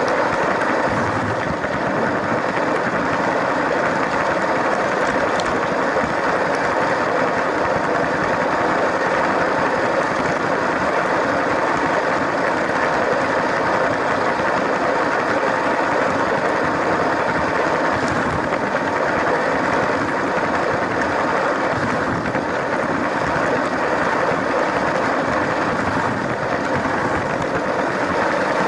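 LEGO train's small electric motor running and its wheels rolling over plastic track: a steady whirring rumble.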